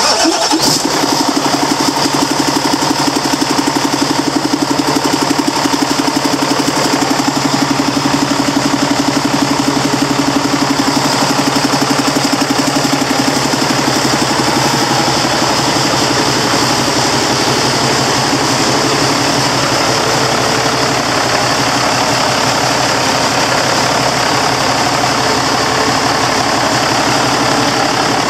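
Cummins ISX inline-six diesel engine on a test stand fires up abruptly and then idles steadily, with a rapid, even firing pulse.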